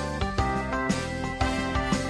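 Background music: a light, upbeat tune with plucked guitar and a steady beat.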